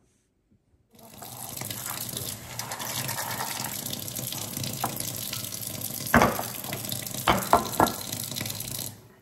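Kitchen tap running water into a stainless steel bowl, starting about a second in and shutting off near the end, with several sharp knocks of the bowl being handled in the second half.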